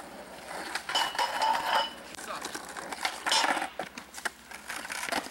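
Skateboard clattering and rolling on asphalt: wheels and trucks rattling in two louder bursts, about a second in and again about three seconds in.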